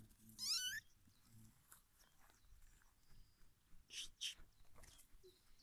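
Four-week-old tabby kitten giving one short, high-pitched mew about half a second in, followed about three seconds later by two brief, soft noises.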